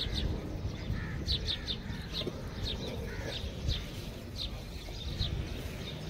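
Small birds chirping: short high chirps repeated about twice a second, over a steady low rumble.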